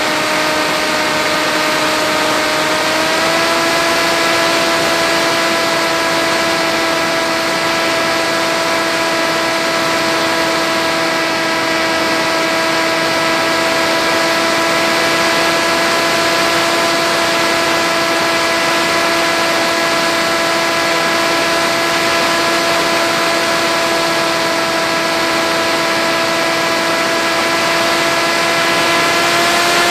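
Electric motor and pusher propeller of an FX-61 flying wing running in flight, heard from the plane's own camera: a steady whine over a hiss. The pitch steps up slightly about three seconds in and again near the end as the throttle is eased up.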